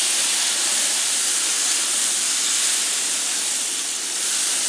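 Butter sizzling on a hot griddle as it is spread around, a steady hiss.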